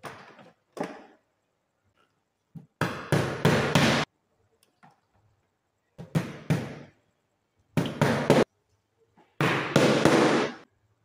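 Hammer tapping cable clips into a wooden board, in four quick runs of several blows each, with short pauses between the runs.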